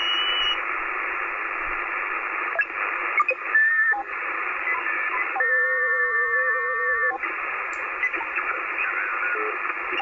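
Icom IC-7300 HF transceiver's receive audio on the 20 m band in USB, tuned through the digital-mode signals at the bottom of the band. It is narrow-band hiss and chirping data tones. A steady set of several warbling tones takes over for about two seconds past the middle.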